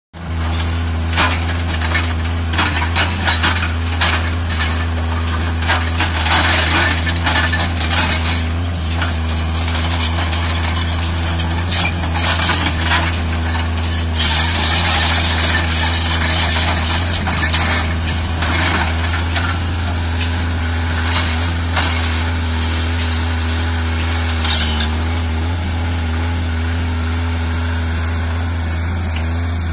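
Diesel engine of a Tata Hitachi EX110 crawler excavator running steadily under working load, with repeated crunching and scraping as the bucket digs into and drags through dry soil.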